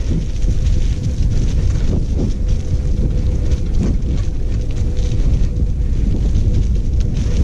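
Wind buffeting the microphone of a camera on a bike moving along a dirt trail, a loud steady rumble mixed with the crackle and rattle of the ride over leaves and dirt. A faint steady hum runs underneath.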